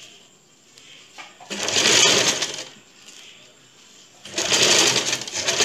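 Electric domestic sewing machine stitching a bias strip onto a blouse neckline, run in two short bursts of about a second each with a pause between.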